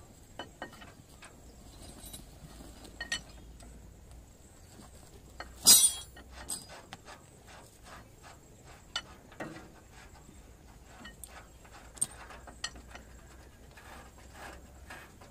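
Scattered metallic clicks and clinks from a hydraulic bottle jack being pumped with a steel bar under a tractor axle while an iron cage wheel is worked off, with one loud metal clank a little under six seconds in.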